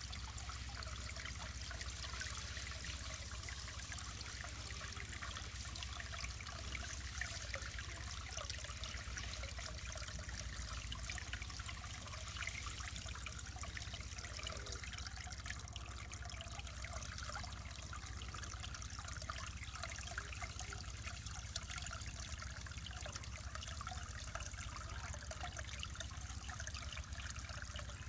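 Mountain stream trickling and splashing over rocks, a steady babble of small running water.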